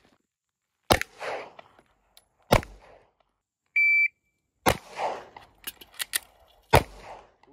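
Pistol shots on an outdoor range: two shots, then a shot timer's single high beep, then two more shots about two seconds apart with a few light clicks between them. This is a timed reload drill, called as a 2-second reload.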